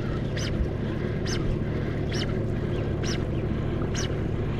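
Bass boat motor running at a steady trolling speed, a constant low hum, with short high-pitched sounds about once a second.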